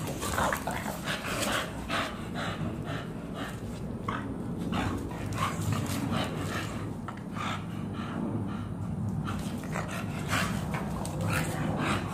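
Two American bully dogs play-wrestling, panting hard in quick rapid breaths, with low growling running underneath.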